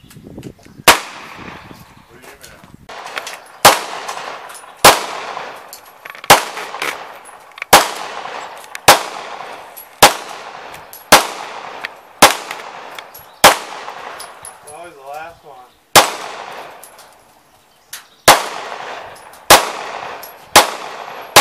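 Semi-automatic pistol fired in a steady string of single shots, about one a second, each crack trailing off in an echo. A pause of about two seconds comes roughly two-thirds through before the firing resumes.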